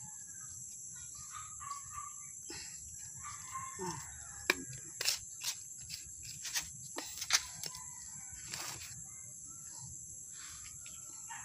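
Faint chicken calls, with a rooster crowing, and a run of sharp clicks and taps in the middle.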